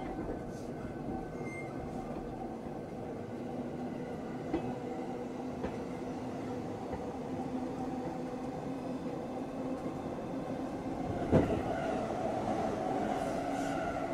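Interior running sound of the JR East E231-900 series motor car MoHa E231-901, with its Hitachi IGBT-VVVF inverter drive, on the move between stations: a steady rolling rumble with faint level motor tones. A couple of light knocks come around the middle, and there is a sharp thump about eleven seconds in.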